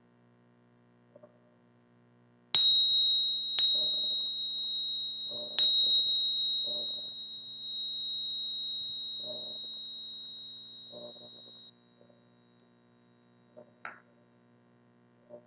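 A small high-pitched meditation bell or chime struck three times in close succession. It rings one clear tone that fades over several seconds and then stops abruptly, marking the end of a silent meditation period.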